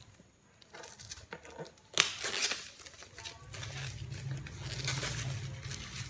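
Plastic wrap on a new router's box being torn and crinkled off, with a sharp snap about two seconds in.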